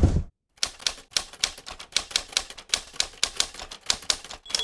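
Manual typewriter keys clacking in a quick, even run of keystrokes, one per letter, typing out a logo. A bell ding starts right at the end. The sound of the moving vehicle cuts off in the first moment.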